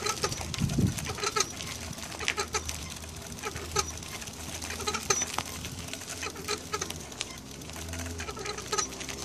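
Electric bike wheel squeaking over and over as it turns, short squeaks coming irregularly, over a low hum. The owner thinks the squeak comes from the hub motor, where one bearing does not turn quite smoothly.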